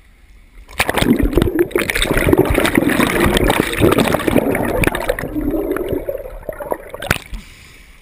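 River water gurgling and churning around the camera as it goes under in a submerged rock channel, heard through the waterproof camera housing. The noise starts about a second in and drops away around seven seconds in as the camera comes back up.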